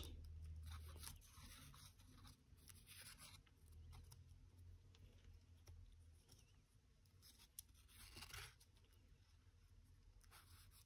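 Near silence: faint, scattered crinkling of 80 gsm origami paper as fingers pinch and fold it, over a low steady hum.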